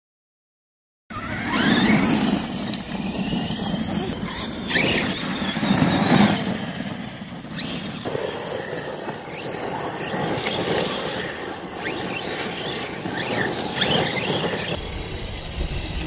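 Electric RC trucks' motors whining, rising and falling in pitch with the throttle, over the scrabble of tyres spinning through loose dirt and gravel. It starts about a second in, after silence.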